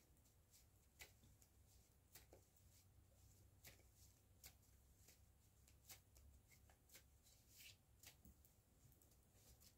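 Near silence with faint, irregular soft clicks and rustles of large reading cards being handled and shuffled.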